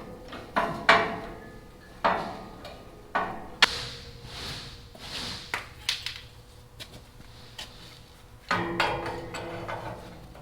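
Steel pieces clanking and knocking as they are handled and struck, a run of sharp metal impacts with some ringing near the end.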